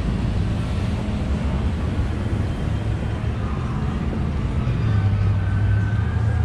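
Car moving, with steady engine and road hum heard from inside the cabin, growing stronger about five seconds in.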